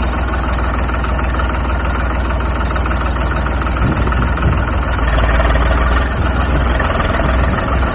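Diesel tractor engine running steadily with a knocking beat.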